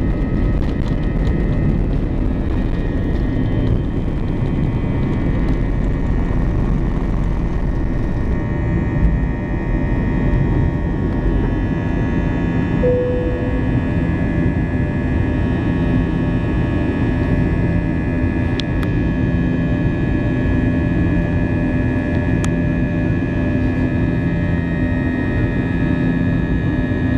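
Jet airliner's turbofan engines at takeoff thrust, heard from inside the cabin: a steady loud rush with a high whine. The heavy runway rumble drops away about eight seconds in as the aircraft lifts off and climbs.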